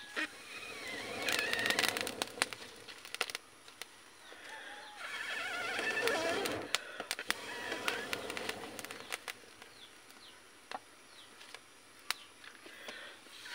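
Scattered sharp clicks and cracks of dry sticks and bamboo strips being handled and pushed into a smoky wood fire in a clay stove, with wavering bird-like calls in the background at a few points.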